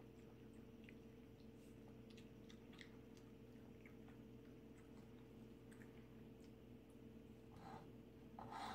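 Faint wet lapping of a cat and a puppy drinking from a steel water bowl: scattered small tongue clicks and splashes over a low steady hum. A louder hiss comes in near the end.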